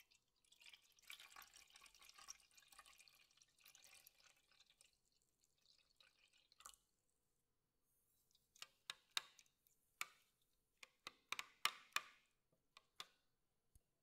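A soft hiss for a few seconds as something is spooned into water in a plastic measuring jug, then a metal spoon stirring the water and clinking against the jug's sides in a run of sharp, irregular ticks.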